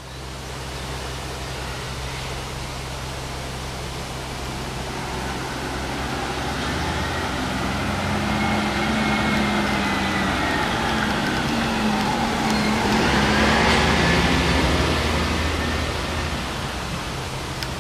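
Class 66 diesel locomotive's EMD 12-cylinder two-stroke engine running and pulling away slowly. From about six seconds in the engine note rises and grows louder under power, peaks a little past the middle, then eases back.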